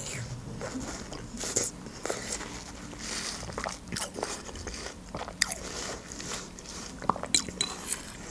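Close-miked chewing of a bite of watermelon: wet mouth sounds with many small clicks and smacks.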